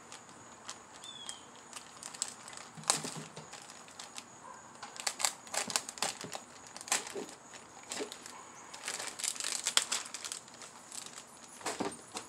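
Thin plastic parts bag crinkling and rustling in irregular spurts as it is opened and handled and parts are pulled out.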